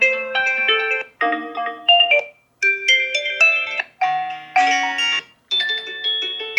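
Oppo Reno6 Pro 5G alarm tones previewed one after another through the phone's speaker: short melodic chime tunes, each cut off after a second or so as the next one starts, about five different tones in turn.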